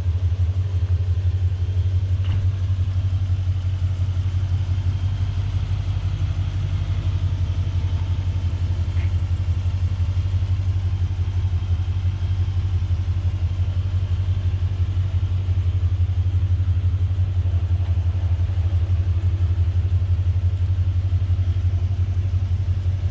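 Dodge Durango R/T's 5.7-litre HEMI V8 idling steadily, a low even rumble. Two faint clicks sound a couple of seconds in and again about nine seconds in.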